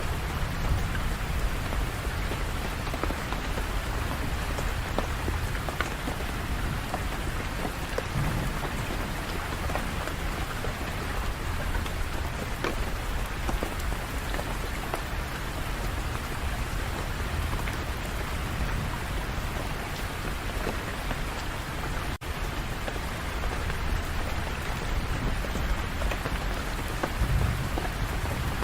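Steady heavy rain falling on hard surfaces, with a low rumble underneath. The sound breaks off for an instant about three-quarters of the way through.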